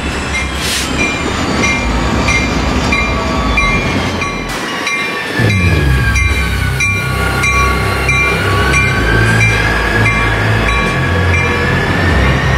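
Diesel freight locomotives passing close by, their engines running under load. About five seconds in the engine noise jumps louder as the next unit comes alongside, and a whine dips and then rises in pitch. A grade-crossing warning bell rings about every three quarters of a second throughout.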